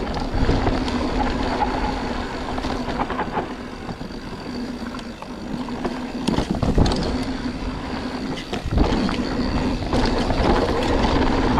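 Mountain bike riding fast down a dirt forest trail: tyres rolling and the bike rattling over the ground, with two hard knocks from bumps, one about halfway through and another a couple of seconds later.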